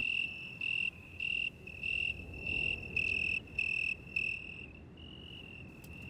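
A male tree cricket singing by rubbing its raised wings together. It gives a clear, high chirp about twice a second, which runs into one longer unbroken trill about five seconds in.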